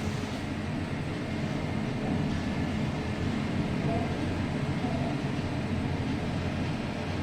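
Passenger lift car travelling between floors, a steady low rumble.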